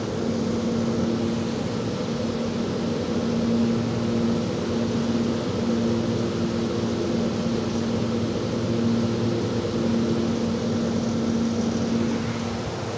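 Steady mechanical hum and hiss with a low droning tone that drops out briefly now and then.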